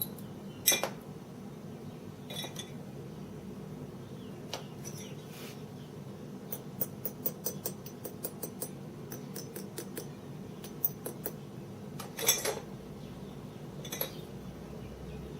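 Light metallic clinks and taps of hand tools and metal parts being handled. There are a few single louder knocks and, in the middle, runs of quick light ticks.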